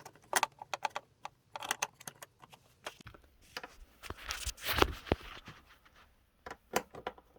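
Small clicks and taps of a screw and motorcycle tail trim parts being handled and fitted by hand, with a louder rustle and knock of handling about halfway through.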